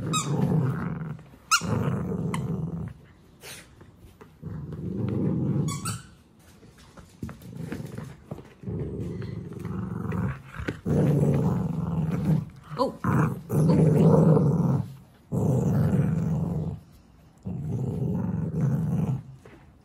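Cavalier King Charles spaniel growling in repeated bouts of a second or two each, with short pauses between, while mouthing and tugging a plush toy.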